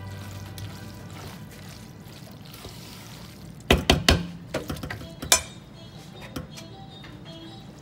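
A spoon clinking and knocking against a metal pot while a thick macaroni salad is stirred, with a quick cluster of sharp knocks a little under four seconds in and another single knock over a second later. Soft background music underneath.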